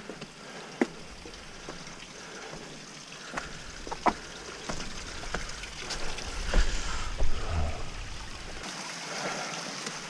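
Creek water running, with scattered sharp knocks of footsteps and gear on rock. A low rumble comes in about three and a half seconds in and drops away near the end.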